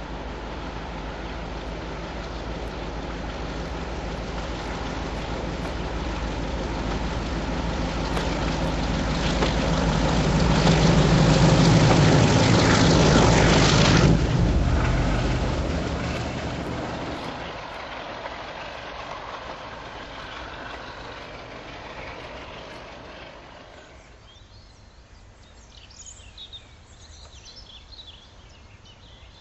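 Heritage diesel locomotive hauling a train under power, its engine growing steadily louder as it passes close by, then dropping away sharply about halfway through and fading. Birds chirp faintly near the end.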